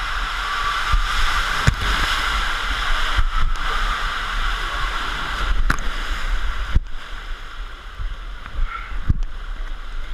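Water rushing and sloshing along a water slide as a rider goes down it, with a few sharp knocks and bumps along the way.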